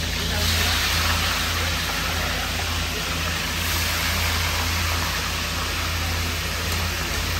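Fish deep-frying in a large pan of hot oil: a steady sizzling and bubbling that grows slightly louder about half a second in, over a steady low hum.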